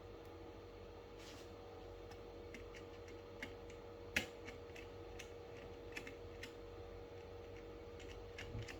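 Faint scattered clicks and taps of a wire and screwdriver being worked into a gas detector's terminal block, with one sharper click about four seconds in.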